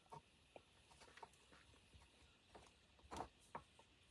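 A few faint short clicks of hand wire snips cutting capacitor leads on a circuit board, the loudest a little after three seconds in, amid near silence.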